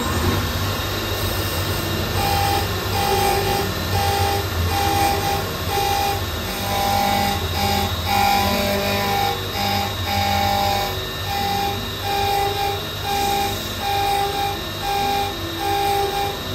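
CNC lathe machining a tungsten dart barrel: a steady low machine hum with a short pitched cutting whine that repeats about once a second as the tool cleans the gold titanium coating from the barrel's grooves.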